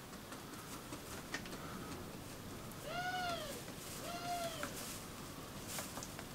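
A cat meowing twice in quick succession, each meow rising then falling in pitch, over scattered faint clicks and taps.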